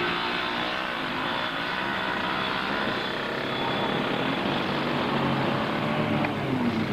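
Engines of several quads (ATVs) running at once, their pitches shifting as the riders work up the sand slope. Near the end one engine drops in pitch and then picks up again.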